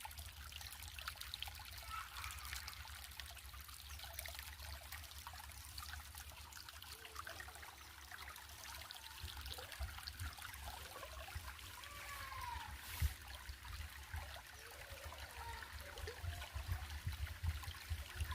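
Water trickling steadily, as of a small stream, with a few faint short rising-and-falling calls in the second half and a single sharp click about two-thirds of the way through.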